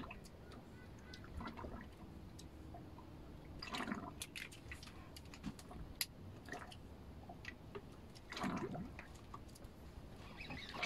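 Faint water lapping and dripping against the hull of a small boat, with a few soft splashes and light clicks.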